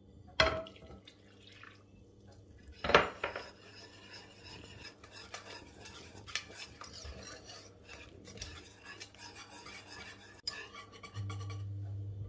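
Wire whisk stirring flour, starch and water into a batter in a pot, scraping and clinking against the pot's sides and bottom. Two sharp knocks come first, the louder one about three seconds in.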